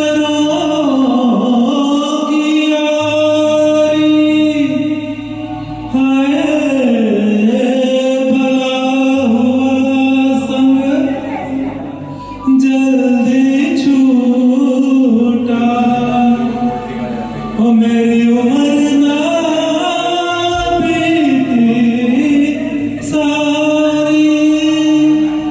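A man singing a Hindi song over a karaoke backing track, in long held phrases with a short break about every five to six seconds.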